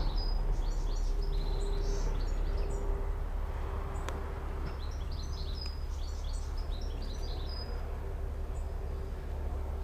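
Small birds chirping in short bouts over a steady low background rumble and a faint hum, with one faint click about four seconds in.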